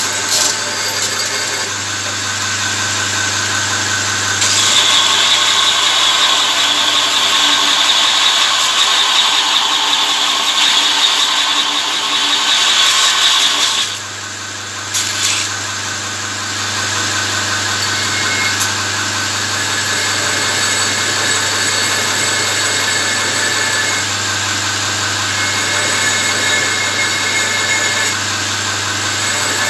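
Electric belt grinder running with a steady motor hum while forged steel is ground against the abrasive belt, a loud hissing grind. The grinding stops abruptly about halfway while the motor keeps running, then lighter grinding resumes with a thin high whine coming and going.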